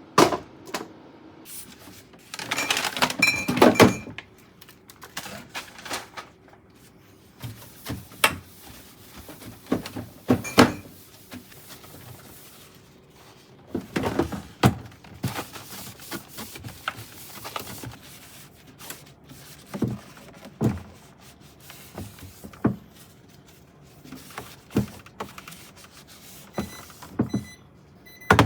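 Containers, shelves and dishes being taken out and set down while a fridge is cleaned: scattered knocks, thunks and clinks of plastic and glass, with a busier run of clattering a few seconds in.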